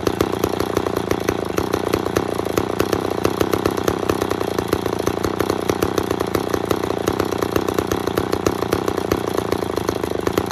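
McCulloch 10-10 two-stroke chainsaw running steadily and loud, with a fast, even firing beat that holds at one speed.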